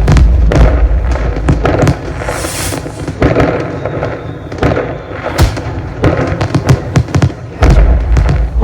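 Fireworks going off: a rapid string of sharp cracks and pops, with deep booms at the start and again near the end.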